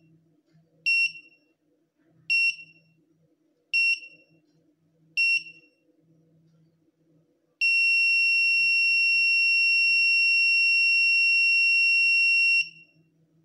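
Electronic buzzer of an Arduino-built airsoft bomb prop beeping out the last seconds of its countdown: four short high beeps about a second and a half apart. Then one long steady tone of about five seconds, the signal that the bomb has 'exploded' and the game is over.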